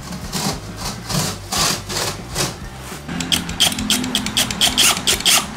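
Cutter knife scoring a gypsum board in repeated scraping strokes, about three a second. About three seconds in, a cordless drill hums while it drives a screw through the gypsum board into the steel stud, with rapid clicking.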